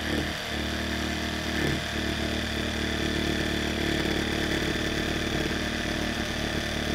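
Proxxon Super Jigsaw running steadily, its reciprocating blade sawing through the hard shell of a dried gourd.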